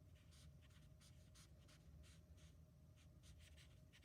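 Faint scratching of a Stampin' Blends alcohol marker colouring in a stamped image on thick cardstock: a quick, uneven run of short strokes, about three a second.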